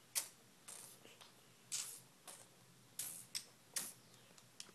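Small plastic Lego pieces handled and pressed together: a string of short scratchy clicks and rustles, about two a second and unevenly spaced.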